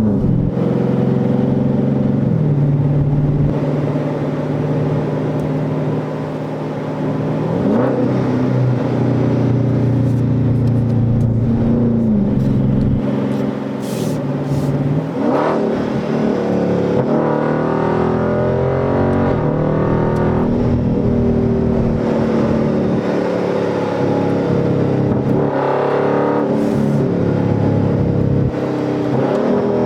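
A 2021 Dodge Charger Scat Pack's 392 (6.4-litre) HEMI V8 running under light throttle. The engine note rises and falls, with several sudden steps in pitch.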